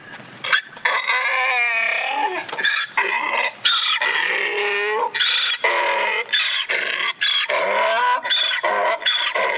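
Donkey braying: loud hee-haw calls, a long wavering bray followed by a quick run of alternating short notes.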